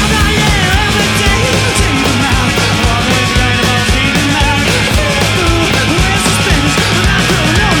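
A live rock band playing a loud, driving mod-style rock song, with electric guitars, bass and drums.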